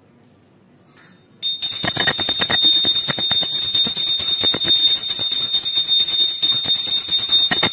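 Small brass puja hand bell (ghanta) rung fast and continuously for the aarti. It starts suddenly about a second and a half in, a steady high ring over rapid clapper strikes.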